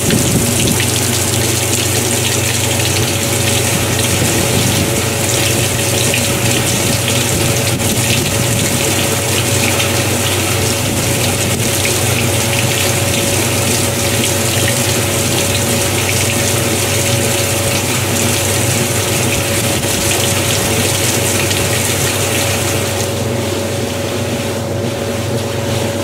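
Kenmore 80 Series direct-drive washing machine in its spray rinse during a low-speed spin: water jets hissing into the spinning basket over a steady motor hum with a steady whine. The spray eases off near the end.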